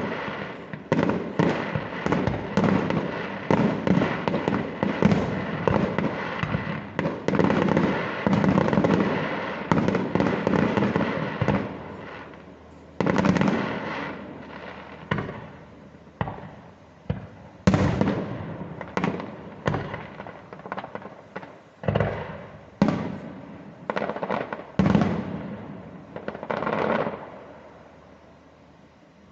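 Fireworks display: a dense run of shell bursts for the first dozen seconds, then single loud bangs a second or two apart that die away near the end.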